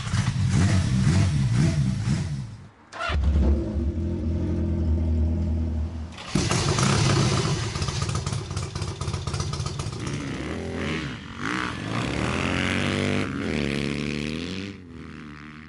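Motorcycle engines in a string of short clips that cut from one bike to the next: running and revving, the pitch rising and falling with the throttle near the end.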